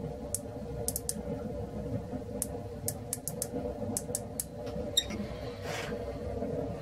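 Quick, light clicks of small metal tools being handled, over a steady machine hum in a workshop. There is one sharper click about five seconds in, followed by a brief hiss.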